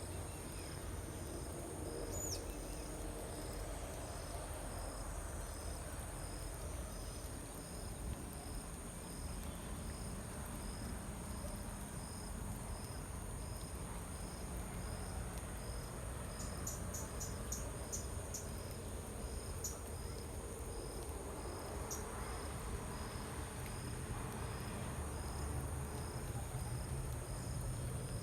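Crickets trilling steadily, with a high continuous tone and a regular pulse about twice a second. Past the middle comes a quick run of short, high chirps, with a couple of single chirps after it, over a low background rumble.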